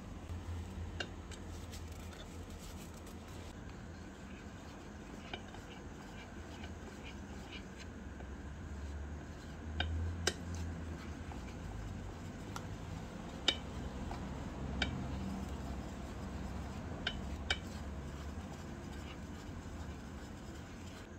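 Scattered light clinks and taps of kitchen utensils against dishes, about eight in all, the sharpest about ten and thirteen seconds in, over a steady low hum.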